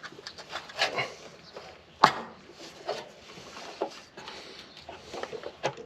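Hand tools clinking and knocking on engine parts during a teardown: scattered small clicks with one sharper knock about two seconds in.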